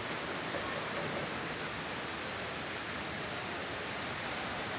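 Fast-flowing river water rushing steadily, an even, unbroken wash of noise.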